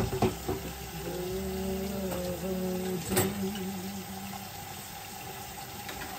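Kitchen tap running steadily into a stainless steel sink, with a dish clattering at the start and again about three seconds in. A low hum that steps in pitch a few times sounds under the running water during the first half.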